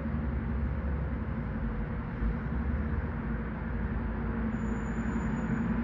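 Airbus A320 flying low on approach: steady jet-engine drone with the typical A320 whistle from the fuel over-pressure protector (FOPP) vent cavities under the wings, a thin steady tone above the rumble.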